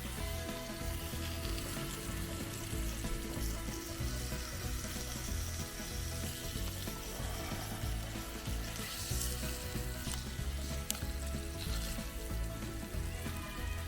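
Food frying in a hot pan, a steady sizzle.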